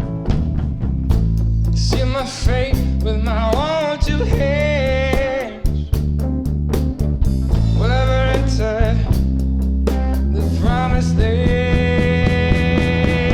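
Live rock band playing, with drums and bass under a lead melody of bent, wavering notes that settles into a long held note near the end.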